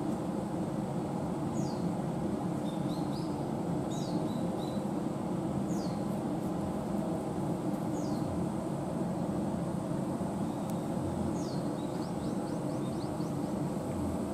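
A bird repeating a short, high call that falls in pitch about every two seconds, with a quick run of short notes near the end. A steady low background rumble runs under it.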